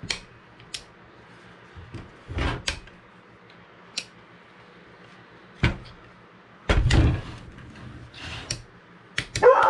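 Scattered knocks, clicks and clunks of a plunge router and its parts being handled on a work surface, the loudest a heavy thump about seven seconds in.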